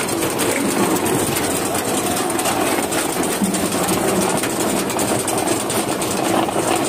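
Tractor-driven Shaktiman-Grimme potato grader running: a steady engine drone under the continuous clatter of the machine's conveyors with potatoes tumbling through it.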